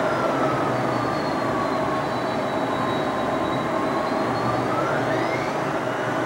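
McDonnell Douglas DC-10 jet engines running at high power during the take-off run: a steady rumbling roar with a whine that slides down in pitch and then climbs back up about five seconds in.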